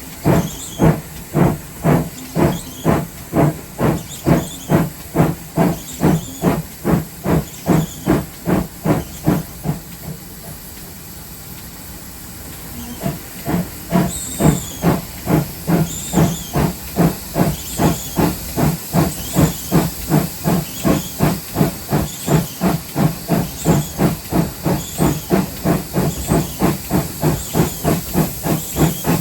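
Steam exhaust beats of GWR 57xx pannier tank 7754 working a train, chuffing evenly about two to three times a second over a steady hiss of steam. The beats stop for a few seconds near the middle, leaving only the hiss, then pick up again slightly faster, with faint high squeaks in time with them.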